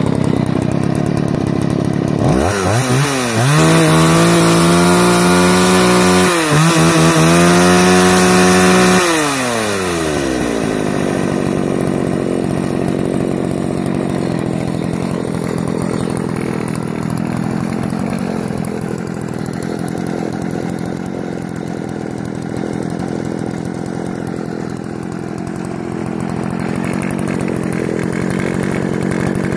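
Poulan 3400 (Craftsman 3.4) 56cc two-stroke chainsaw idling, revved to full throttle about two seconds in and held there with a brief dip, then falling back to idle around ten seconds in and idling steadily. It is running again after a carburetor rebuild with a new diaphragm.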